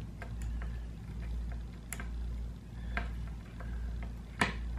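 Light metal clicks and taps as fingers fit the small bolt cam into the scope mount at a Benjamin 392 air rifle's breech, with two sharper clicks, one about two seconds in and one near the end.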